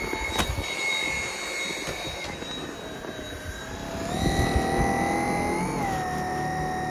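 Dyson V7 cordless stick vacuum's motor running with a high, steady whine. The whine fades a little past two seconds in, then comes back lower and climbs to a steady pitch by about four seconds, with small wobbles in pitch as the suction load changes.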